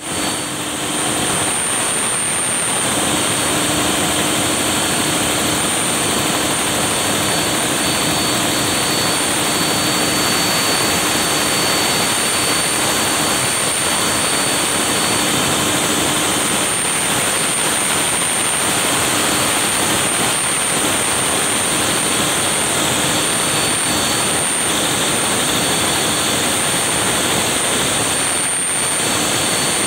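Gas generator running steadily: a loud, even mechanical rush with a steady high whine on top.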